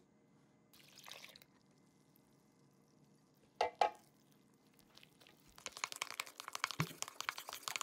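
Water and milk poured from a cup into a ceramic bowl of flour, with two sharp clinks of crockery. From about five and a half seconds in, a fork scrapes and taps quickly against the bowl as the dough is mixed.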